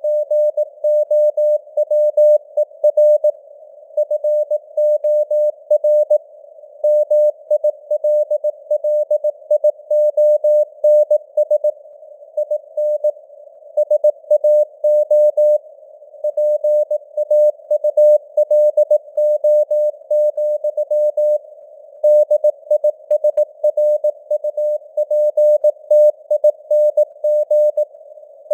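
Morse code (CW) sent at 18 words per minute: a single steady tone keyed in dots and dashes, with short gaps between words. It sits in a narrow band of simulated radio hiss, and its strength fades up and down (QSB).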